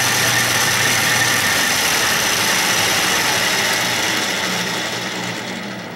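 Craftsman 6-inch metal lathe running under its half-horsepower electric motor, spindle and chuck turning with the lead screw gears engaged, a steady mechanical whirr. About four seconds in it is switched off and the sound fades as the lathe winds down.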